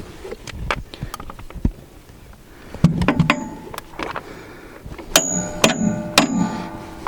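Metal tools and parts knocking and clinking while a wood chipper is taken apart to reach its belt, with a ringing metallic stretch about three seconds in and three sharp ringing strikes near the end.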